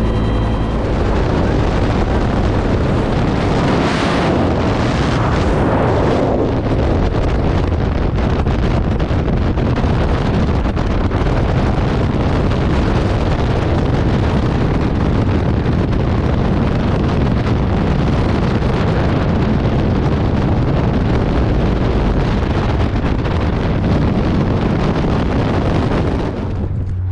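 Loud, steady roar of wind rushing over the camera microphone in skydiving freefall. It starts just after a split second of helicopter cabin noise and drops away suddenly near the end.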